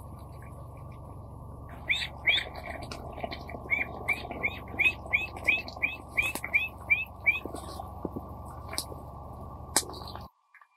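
A bird calling a rapid series of short rising chirps, about three a second, over a steady low background rumble. A couple of sharp clicks follow near the end, and then the rumble cuts off suddenly.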